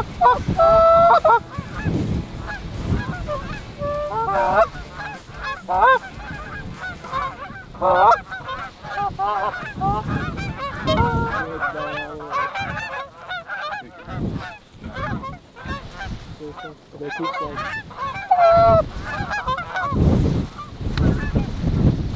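Canada goose honks and clucks, many short calls overlapping, from hunters' goose calls working an incoming flock of Canada geese. Low rumbles of wind on the microphone come and go.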